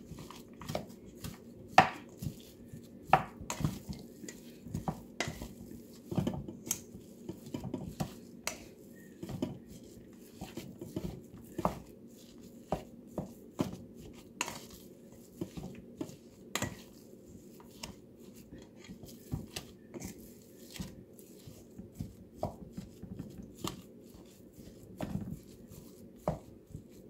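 White plastic spatula stirring ground beef with chopped vegetables in a stainless steel bowl: irregular knocks and scrapes of the spatula against the bowl, roughly one or two a second, some louder than others.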